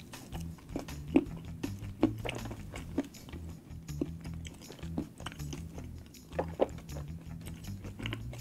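Close-miked chewing of a bite of Hershey's Sundae Pie, a chocolate cream pie, with sharp wet mouth clicks and smacks every second or so. Faint background music runs underneath.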